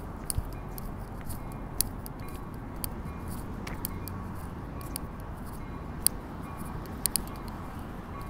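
Steady city background noise with a faint high tone running through it and scattered sharp clicks, about a dozen, including a quick pair near the end.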